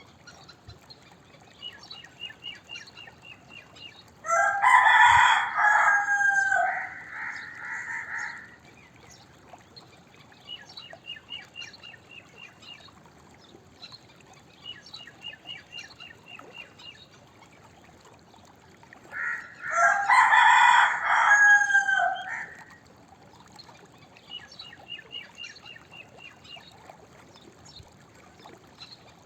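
Domestic rooster crowing twice, a long multi-part cock-a-doodle-doo about four seconds in and another about twenty seconds in. Between the crows come faint runs of short, high-pitched chirping notes.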